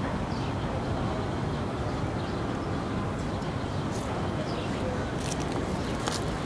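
Steady low outdoor background rumble, like distant city traffic, with a few faint short high chirps and light clicks.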